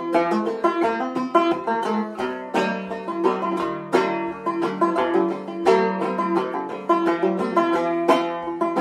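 A salad bowl banjo with a bloodwood neck playing an instrumental tune: a steady, even run of plucked notes that ring briefly over a repeating drone.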